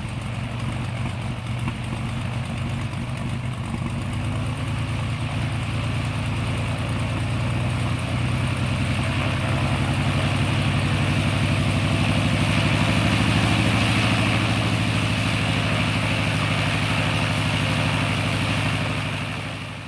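Propeller plane engine idling steadily with a regular low pulsing beat, growing a little louder partway through and fading out at the end.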